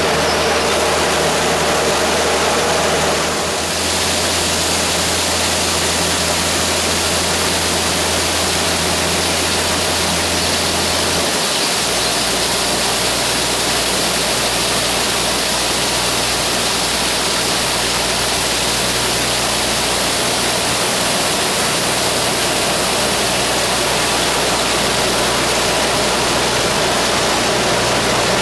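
Grain auger unloading soybeans: a steady rushing hiss of beans pouring, over the low hum of the engine driving it, which shifts down in pitch about eleven seconds in.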